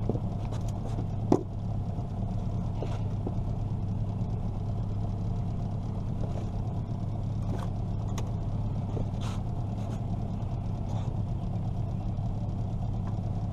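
Steady low drone of a boat motor idling. Over it come one sharp knock about a second in and scattered lighter clicks and knocks from pliers and the catfish being handled in the aluminium boat.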